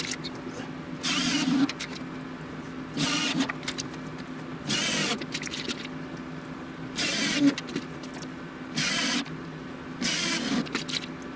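About six short bursts from a power tool working the plywood, each roughly half a second long and a couple of seconds apart, over a steady low hum.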